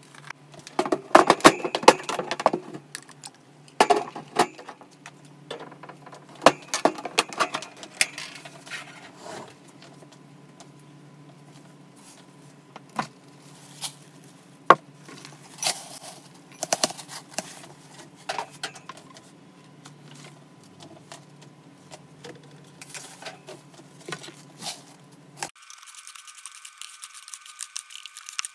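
Paper hamster bedding rustling and crackling in irregular bursts as it is disturbed, with light clicks and rattles from the plastic enclosure; the loudest bursts come in the first few seconds. Near the end the rustling stops and a thin, steady high-pitched hiss is left.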